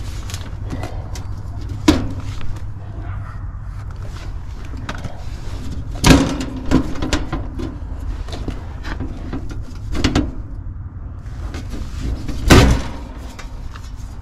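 Sheet-metal service panel of an outdoor AC condenser being worked loose and pulled off by hand, with a few sharp metal clunks and rattles, the loudest about six seconds in and again near the end.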